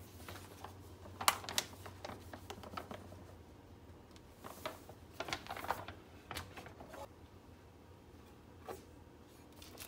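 Faint, scattered light clicks, taps and rustles of kitchen handling as powdered oat fiber is measured into a ceramic bowl on a digital kitchen scale and then tipped into a stainless steel mixing bowl.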